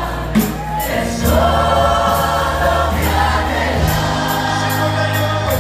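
A church congregation and worship singers singing a Spanish-language hymn together, backed by a live band: a sustained bass line and drums keeping a steady beat with cymbal strokes about twice a second.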